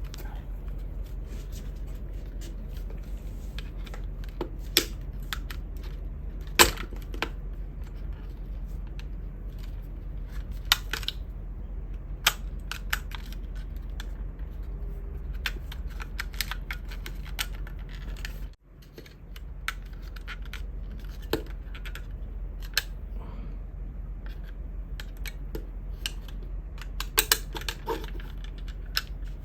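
Irregular sharp clicks and snaps of small plastic and metal parts being handled and pried apart while a pocket radio is dismantled, over a steady low hum.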